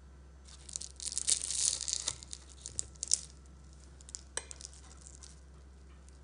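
Crisp syrup-soaked phyllo pastry (şöbiyet) crackling and crunching for about two and a half seconds as a fork and knife cut through its layers. The crunch shows the layers are still crisp after soaking up the syrup. A sharp clink of cutlery against the ceramic plate comes about four seconds in, then a few lighter crackles.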